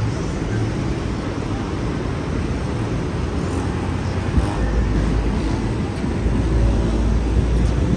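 City street traffic noise: a steady wash of passing vehicles with a low rumble that grows heavier about halfway through.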